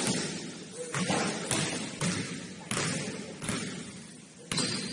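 A basketball bouncing on a hardwood gym floor: about seven thuds at uneven intervals, each ringing briefly in the hall.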